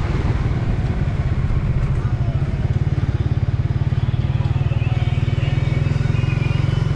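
Motorcycle engine running at low road speed, heard from the rider's seat: a steady low drone, its firing pulses showing as an even throb from a couple of seconds in.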